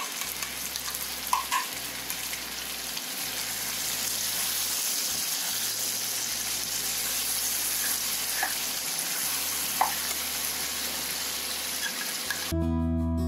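Chicken masala frying in a pan, a steady sizzle, as spoonfuls of yogurt are dropped into the hot oil, with a few light clinks. Strummed guitar music comes in near the end.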